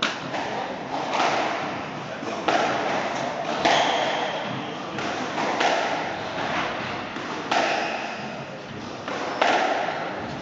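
Squash rally: the rubber ball is struck by the rackets and hits the court walls, a sharp hit about every one to two seconds, each ringing on in the hall.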